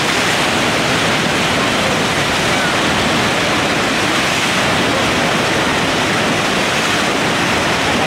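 Steady, loud rush of whitewater churning through a river rapid.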